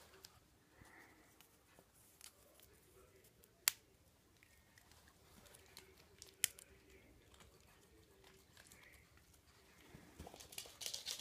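Mostly quiet, with two short, sharp snaps about three seconds apart as a crunchy peanut-butter dog biscuit is broken into pieces by hand. Faint rustling rises near the end.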